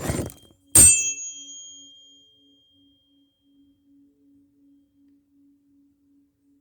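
Handling rustle, then a sharp metallic strike about a second in that rings out in several high tones, fading over a couple of seconds. Under it a steady low pulsing tone dies away toward the end.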